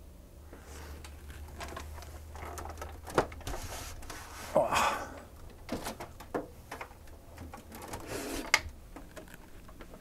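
Handling noise from a heavy PC tower case being slid off a metal shelf and lifted down: scattered knocks and scrapes, with a sharp knock about three seconds in and another near the end, over a low steady hum.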